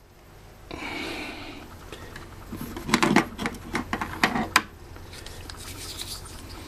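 Hand tools being handled on a workbench: a rustle about a second in, then a run of sharp clicks and knocks between about three and four and a half seconds in.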